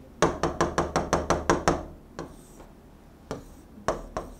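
Pen tip tapping quickly on an interactive display screen, about five sharp taps a second, as dots are stippled onto a drawing; then it goes quieter, with two single taps near the end.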